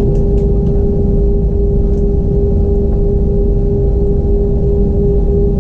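Steady cabin noise inside an Airbus A320-232 airliner: a constant low rumble with a steady hum over it.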